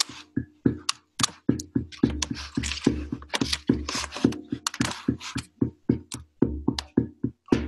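Handpan played with the bare hands: a quick, steady rhythm of struck steel notes over a low ringing tone, with a stretch of rapid, hissy hits through the middle.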